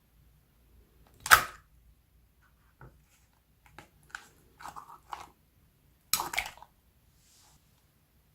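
Slime being squished and mixed by hand: a loud squelch about a second in, a few small sticky pops and clicks, then another squelching burst a little after six seconds.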